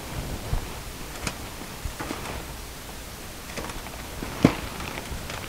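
Gloved hands handling a paint-covered latex balloon: faint rustling and a few light taps, with one sharper tap about four and a half seconds in.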